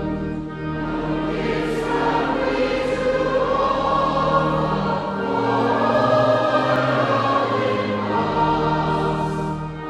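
A hymn sung by a choir or congregation over an instrumental accompaniment, with long held notes that change every second or two.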